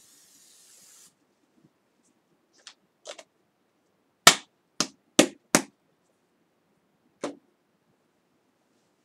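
Aerosol Lysol disinfectant spray hissing, cutting off about a second in. Then a scatter of sharp knocks and clicks, loudest as four quick ones in a row a few seconds in, with a last one near the end.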